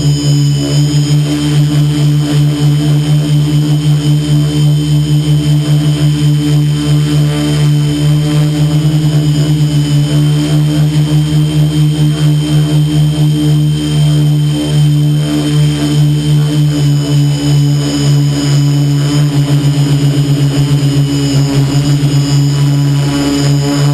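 Quadcopter's brushless electric motors and propellers droning steadily in flight, heard close up from the aircraft itself, with a fast pulsing wobble in loudness and a slight change in pitch near the end.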